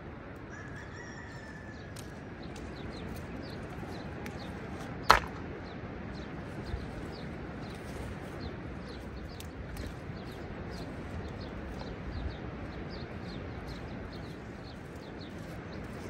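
Small birds chirping over and over in short, high calls against a steady outdoor hiss, with one sharp clack of stone striking stone about five seconds in.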